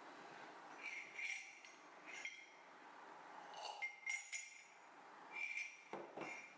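A metal spoon clinking against the inside of a ceramic mug as the mug is lifted and handled: several short, ringing clinks spread through. About six seconds in, a couple of dull knocks as the mug is set down on the table.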